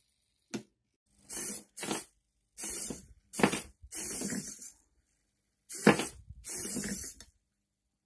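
Small hobby servo motors in a 3D-printed prosthetic hand's forearm whirring in about seven short bursts, each under a second, as they pull the fingers closed and let them open again. A short sharp click comes about half a second in.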